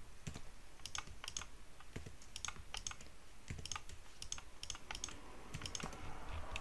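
Quiet, irregular clicking of a computer keyboard and mouse buttons, two or three clicks a second, as keys and mouse buttons are pressed.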